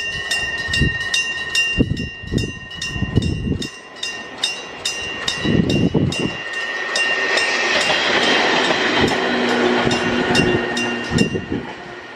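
Japanese railway level-crossing warning bell ringing in rapid, steady strokes as a Hokuriku Railroad Ishikawa Line train runs over the crossing. The wheels clack over the rail joints, followed by a rush of running noise and motor hum. The bell stops shortly before the end.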